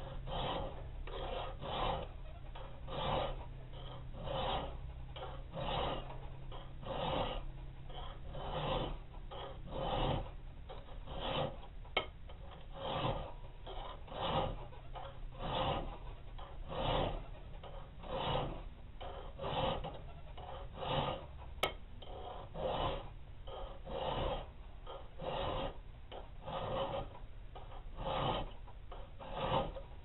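Round file rasping back and forth across the steel spine of a balisong knife blade, cutting rope-pattern filework notches, in steady strokes about one a second.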